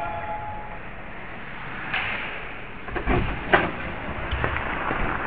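Ice hockey skates scraping and gliding on the rink, with several sharp knocks of hockey play about two, three and three and a half seconds in.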